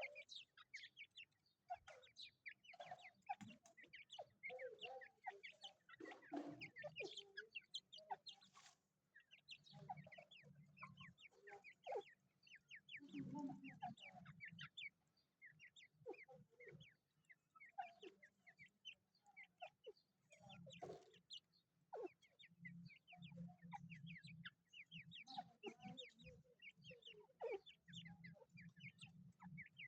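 Chickens clucking faintly, with many short, high chirps scattered throughout.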